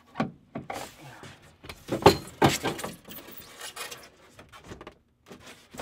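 Rigid 3/4-inch XPS foam insulation board scraping and knocking against a van's metal roof ribs as it is pushed up into place, with scattered sharp clicks and rustles, the loudest knocks about two seconds in.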